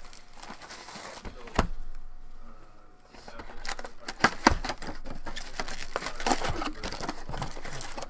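A cardboard SP Authentic hockey card box being handled and opened by hand: taps, scrapes and rustling. There is a sharp knock about a second and a half in, then a quieter moment, then a busy run of clicks and rustles as the lid is worked and the packs are pulled out.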